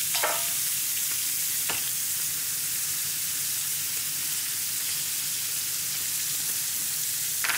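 Pork tenderloins and chopped shallots sizzling steadily in hot butter in a frying pan, with three brief clinks of a metal spoon against the pan: once at the start, once a couple of seconds in and once at the end.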